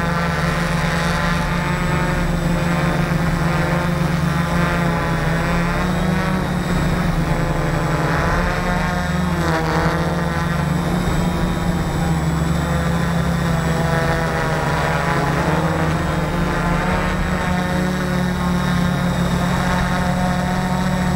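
Electric multicopter motors and propellers whirring close to a camera mounted on the craft. Several motor pitches waver up and down together as the throttle changes, over a steady low hum.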